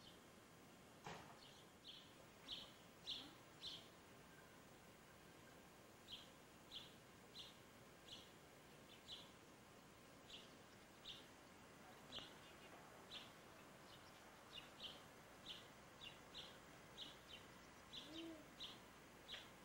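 A small bird repeatedly giving short, high single chirps, about one or two a second, faint over a low background hiss.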